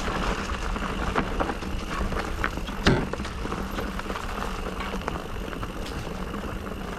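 Electric mountain bike rolling down a rough dirt trail: tyres running over dirt and rocks, with scattered rattles from the bike and one sharp knock about three seconds in.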